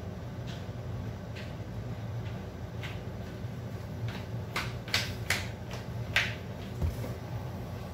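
Pot of molokhia stew simmering under a glass lid on a gas stove: scattered sharp pops and clicks over a steady low hum, with a cluster of louder clicks a little past halfway and a single dull thud near the end.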